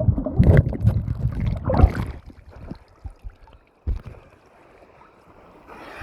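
Water sloshing and splashing close to the microphone in a valley stream pool, with two sharper splashes in the first two seconds; about two seconds in it drops to a much quieter, muffled stretch before the noise builds again near the end.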